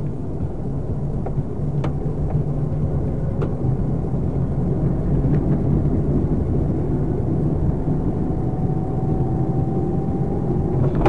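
A car's engine and road noise inside the cabin while driving at steady speed: a constant low drone, with a few faint clicks.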